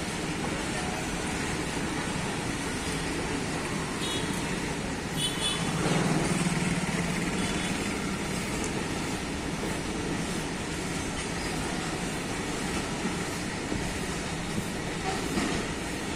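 Goods train of covered freight wagons rolling past: a steady noise of wheels on the rails, swelling a little about six seconds in.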